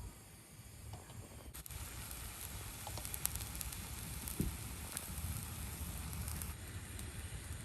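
Crackling and sizzling of camp cooking over a fire, with scattered sharp pops; it swells about a second and a half in.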